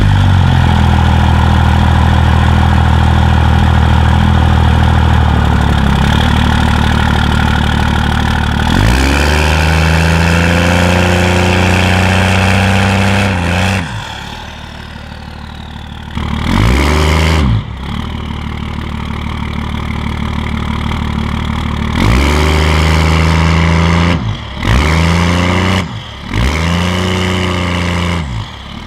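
2001 Dodge Ram 2500's 24-valve Cummins inline-six turbo diesel running loud and high for about thirteen seconds, then dropping to idle, then revved in four quick blips that rise and fall in pitch. The revs are pushed hard enough to roll coal.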